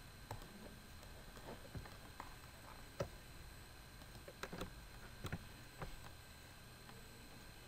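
Faint computer mouse clicks, about ten at irregular intervals with the sharpest about three seconds in, over a steady low background hum.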